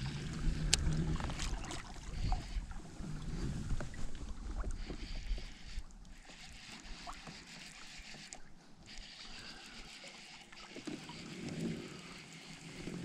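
Small waves lapping against a fishing kayak's plastic hull, with scattered light knocks and clicks and some wind on the microphone; louder for the first couple of seconds, then quieter through the middle.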